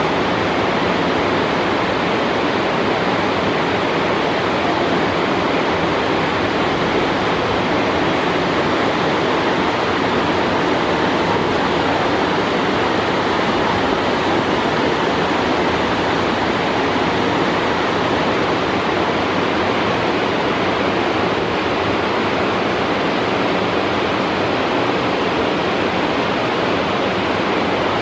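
Waterfalls and cascades pouring over limestone: a steady, even rush of falling water that does not change.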